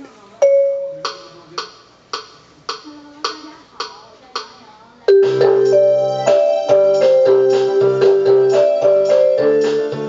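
Casio LK-175 electronic keyboard being played: a string of single struck notes about twice a second, then about five seconds in a louder passage of chords with a bass line and a melody on top.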